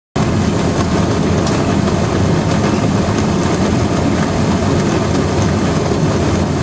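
ASTM vibratory cavitation apparatus, its horn oscillating at 20 kHz in water, driving a cloud of cavitation bubbles that erodes a sandstone specimen. It gives a loud, steady, dense noise with a low hum that starts abruptly.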